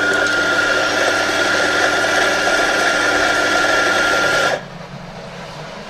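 The built-in grinder motor of a Lelit PL72 espresso machine running and grinding coffee beans, a steady whine that cuts off suddenly about four and a half seconds in, leaving a faint low hum.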